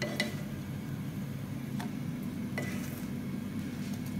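A wooden spatula setting toasted burger buns down on a glass platter: a few light knocks and scrapes against the glass. A steady low hum from a kitchen appliance runs underneath.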